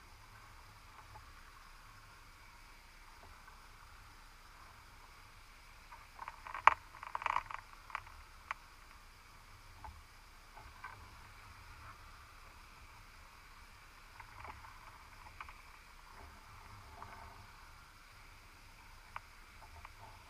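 Sharp clicks and knocks inside a submerged cod/crab pot, picked up by a camera in an underwater housing, over a faint steady hiss. A quick cluster of clicks comes about six to eight seconds in, the loudest about a third of the way through. Scattered single clicks follow.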